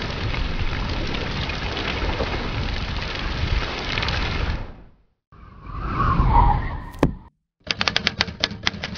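Sound-design effects: a steady rumbling hiss for about five seconds, then after a brief gap a short swelling whoosh that ends in a sharp click. Near the end comes a quick run of typewriter key clacks.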